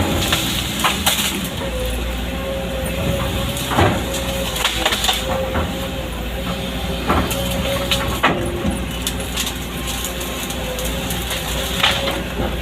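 Excavator engine running steadily under load with a steady hydraulic whine, with scattered sharp cracks and snaps of wood being broken and crushed.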